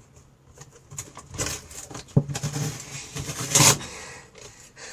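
Handling noises: uneven scrapes and clicks, with a sharp knock about two seconds in and a louder scrape near the end.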